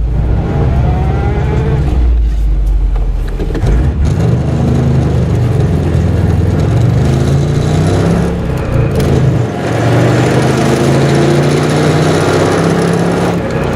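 1978 Subaru Brat's flat-four engine running and pulling away, its pitch shifting up and down as it is given gas, heard from inside the cab. The engine is loud and rough under load, which the owner later traced to a failing water pump.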